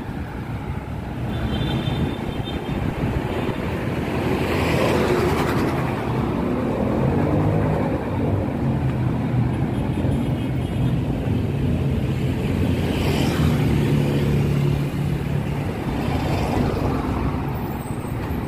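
City street traffic: a minibus and other motor vehicles driving along the road, with a steady engine hum that is strongest midway through.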